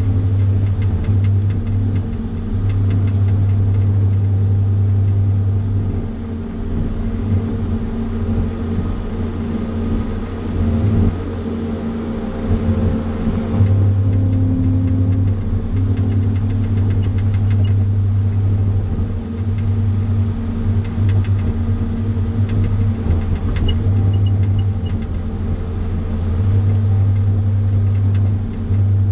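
Engine of a firewood processor running steadily, its low hum strengthening and easing every few seconds.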